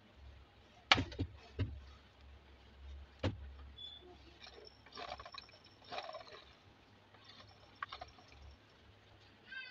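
Angle grinder parts being handled and fitted together by hand, the gear head going onto the motor housing. A few sharp clicks and knocks come in the first few seconds, then bouts of scraping and rattling.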